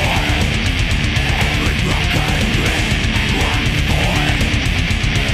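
Heavy metal played on a distorted electric guitar, picked chord riffing over a backing track with fast, driving drums.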